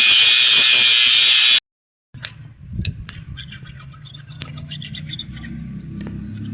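Steel knife blade being worked against an abrasive: a loud, steady rasping hiss that cuts off abruptly about a second and a half in. After that come faint, scattered clicks and taps over a low hum.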